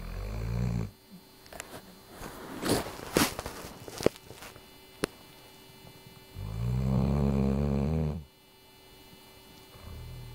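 Weimaraner snoring in its sleep: a low snore at the start, a longer, louder one of nearly two seconds about six seconds in, and the start of another near the end. In the quiet stretch between them come a few short, sharp noises.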